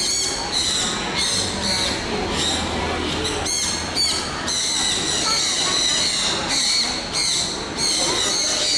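Birds squawking and screeching over and over in a loud, near-continuous series of high-pitched calls.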